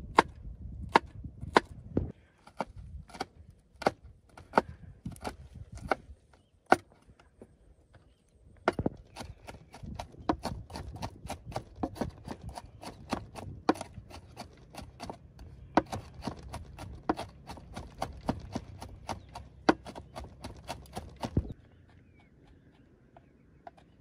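Repeated chopping, a blade striking wood: slower strikes about one and a half a second at first, then after a short pause a faster run of about three a second that stops suddenly near the end.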